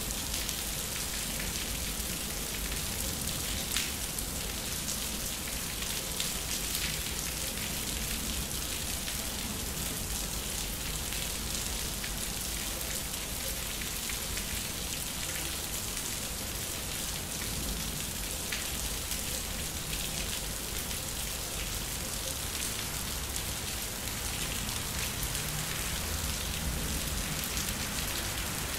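Thunderstorm rain falling steadily on a concrete yard, a constant hiss with many single drops ticking close by.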